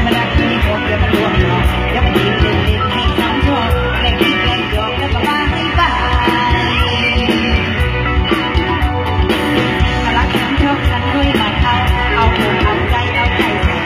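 Thai mor lam band playing live, loud over the concert PA, with a steady heavy beat in the bass and drums.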